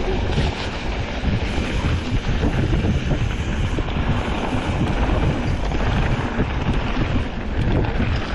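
Wind buffeting the microphone at speed on a mountain bike descent, with the rumble of knobby tyres rolling over a dirt and leaf-covered trail. A steady, dense rumble with a few small rattles and ticks.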